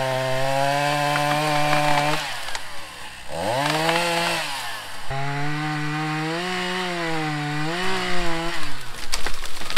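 Two-stroke Echo gas chainsaw cutting through tree limbs. It runs at high revs under load, drops off throttle about two seconds in, revs up and back down, then holds high again with its pitch wavering as the chain works through the wood. A few sharp knocks come near the end.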